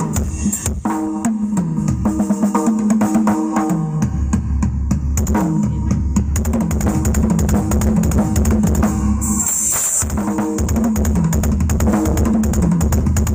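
Drum-heavy music with a deep bass line, played loud through a PA demo rig of 18-inch bass cabinets and 12-inch midrange speakers.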